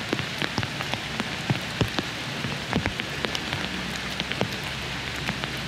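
Monsoon rain falling steadily, with the sharp ticks of single drops landing close by, a few each second at irregular intervals.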